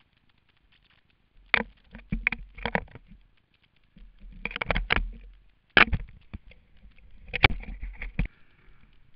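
Close handling noise on a helmet-mounted camera: several spells of rustling, scraping and knocking with dull low thumps, from gloved hands and a goggle strap rubbing against the helmet as the goggles are pulled on.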